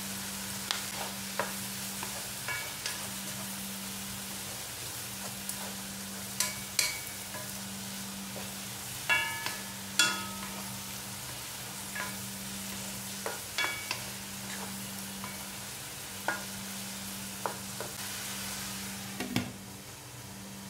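Sliced tomatoes and spices sizzling in a nonstick wok while a wooden spatula stirs them, knocking against the pan every second or two. Near the end a glass lid goes on and the sizzle turns quieter.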